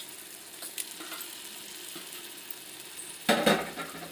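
Chicken pieces sizzling in hot masala in an aluminium pot, a steady frying hiss. About three seconds in there is a brief, louder clatter.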